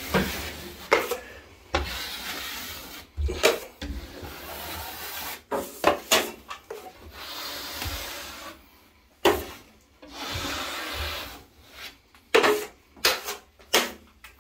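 Taping knife scraping over a ceiling joint in a run of uneven strokes, spreading and flattening wet plaster compound over the tape.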